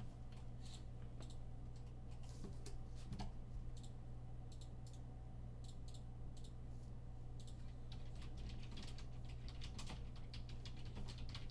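Typing on a computer keyboard: irregular clicks of keystrokes over a steady low hum.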